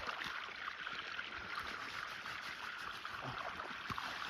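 Steady rush of flowing water, like a stream, with faint scattered clicks.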